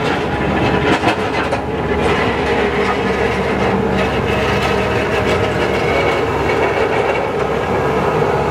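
Road works machinery running steadily and loudly, a dense mechanical rumble with a few knocks in the first couple of seconds.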